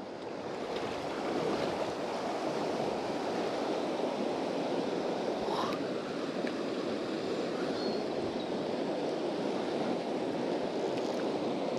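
Fast river current rushing steadily, an even wash of water noise with no let-up.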